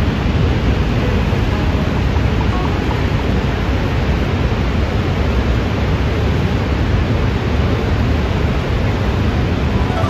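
Niagara Falls' falling water: a loud, steady rush of noise, heaviest in the low end.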